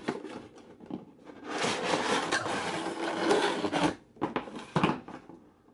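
Cardboard toy box being opened by hand: a click, then about two seconds of cardboard scraping and rubbing as the box is pulled open, followed by a few sharp taps.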